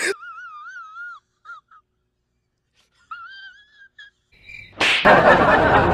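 A person's thin, high-pitched wavering wheeze, twice with a short silence between. Music and a voice come in loudly near the end.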